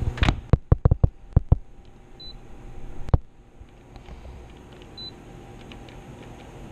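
Smeg speed oven door shut with a sharp clunk, followed by a quick run of sharp clicks and another click a little later. The control panel gives a short high beep twice, about three seconds apart, as the cooking time is set.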